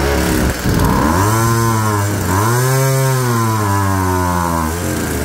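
Small two-stroke brush cutter engine running just after a pull start, speeding up and slowing down twice before cutting out near the end. It runs a little unevenly; the seller says a slight fuel adjustment at the carburettor would make it run smoothly.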